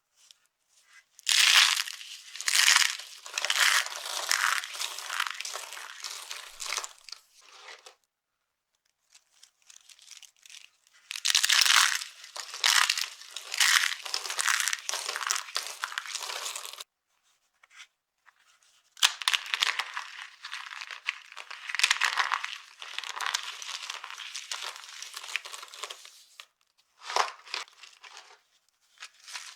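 Dry soap being crushed, crunching and crumbling in three long bouts with short silences between. Each bout opens with a few loud cracks and settles into fine crackling, with two brief crunches near the end.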